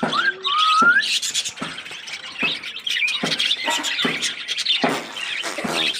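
Cockatiels calling: repeated harsh screeching calls mixed with a few short rising whistles about a second in.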